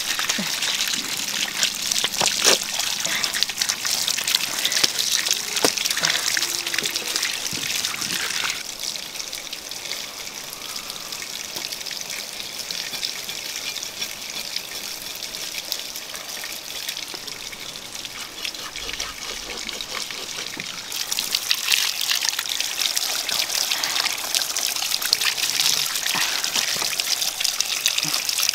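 A stream of water pouring from a bamboo pipe and splashing onto fish in a bamboo basket as they are rinsed by hand. A few sharper splashes come early. The pour is softer and duller through the middle stretch and loud again near the end.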